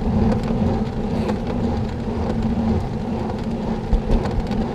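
Wind rushing over the microphone and road noise from a bicycle being ridden, with a steady low hum underneath.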